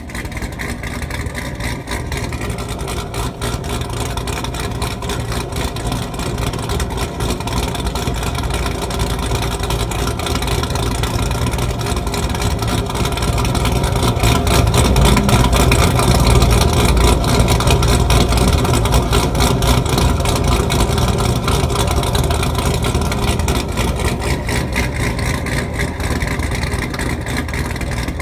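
Pontiac GTO V8 engine running with a rapid, even pulsing exhaust note; it swells louder about halfway through and eases back toward the end.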